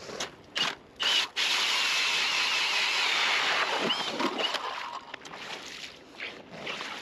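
Ice auger cutting into clear lake ice: a few short scrapes as the blades bite, then a loud, steady grinding scrape for a couple of seconds that fades away.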